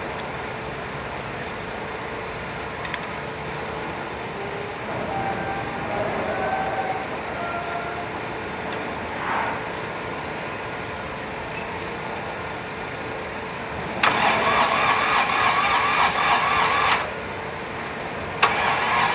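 Electric starter cranking a Kubota D905 three-cylinder diesel in two tries: about three seconds of cranking near the end, a short pause, then cranking again without the engine catching. It is a hard-starting engine.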